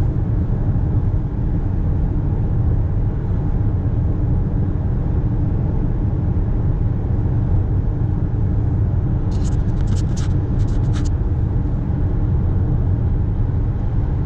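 Steady low rumble of tyres and engine heard inside a car's cabin while driving at highway speed. About nine to eleven seconds in, a quick cluster of light clicks.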